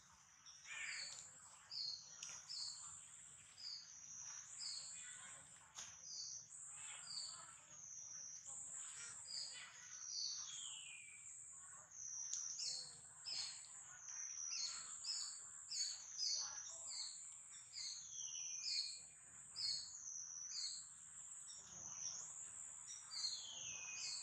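High-pitched calling of forest wildlife, a pulsing call that rises and falls about once a second without a break, with shorter falling whistles mixed in.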